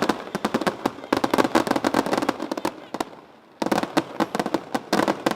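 Fireworks finale: a dense barrage of rapid bangs and crackles in quick succession, with a brief lull about three seconds in before the barrage resumes.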